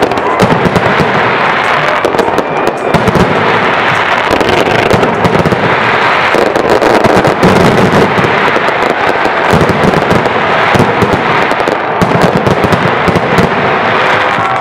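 Dense barrage of aerial fireworks: rapid, overlapping bangs and crackling without a break.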